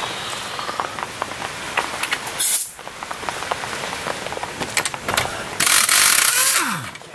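Pneumatic impact wrench spinning off the castle nut on the lower ball joint: a short burst about two and a half seconds in, then a louder run of a little over a second near the end that winds down with a falling pitch. Small metal clicks and clinks of tools in between.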